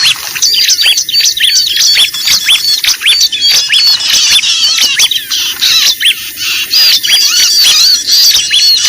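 A dense, loud chorus of small birds: many rapid, high-pitched chirps and chattering calls overlapping without a break, the agitated mixed-bird 'ribut' sound used as a lure to attract small birds.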